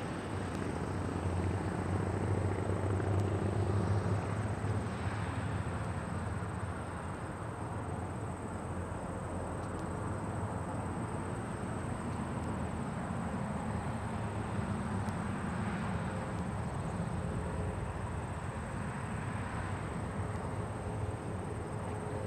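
Distant aircraft engine, a steady low drone that is a little louder in the first four seconds or so.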